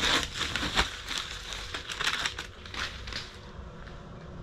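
Irregular crinkling and clicking handling noise, as of paper or plastic being rustled, dying down about three seconds in to a quieter, duller background.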